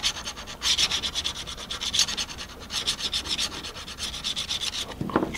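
Steel scraper blade being honed flat on its back with a medium India stone: a fast scratchy rubbing of stone on steel, in runs broken by brief pauses, removing the burr left from filing the 45-degree edge.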